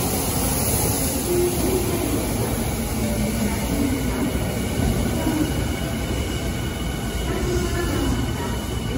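Tokyu Den-en-toshi Line electric commuter train running along the platform as it pulls into the station: a steady rumble of wheels and running gear with a faint high whine.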